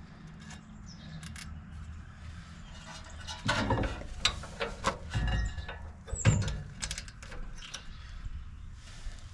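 Clicking and metallic clattering from hand work on a truck's front brake assembly. It starts about three and a half seconds in over a low hum, with one sharper knock a little after six seconds.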